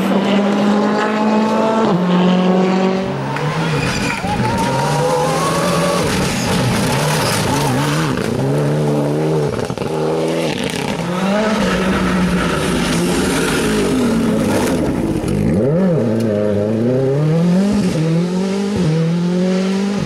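Rally car engines at full throttle: the pitch climbs gear by gear and drops back at each change. Near the end it dips deeply under braking and downshifts, then climbs again as the car accelerates away.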